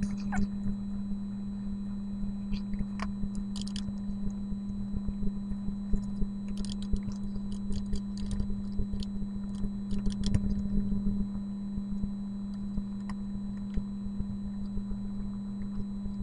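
Steady low electrical hum with scattered short clicks of a computer mouse and keyboard, most frequent about six to eleven seconds in.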